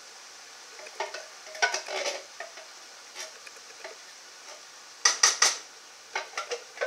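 Metal can knocking and scraping against the rim of a cooking pot as canned tomatoes are emptied into a meat sauce, with a cluster of three sharp knocks about five seconds in.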